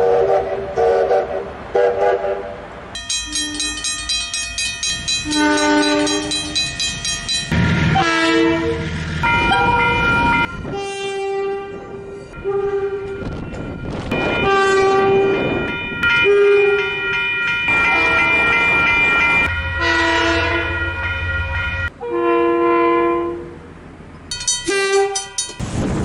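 Train horns sounding a series of blasts, some short and some held for several seconds, each a chord of several tones sounding together. The pitch and chord change between groups of blasts, as from different locomotives.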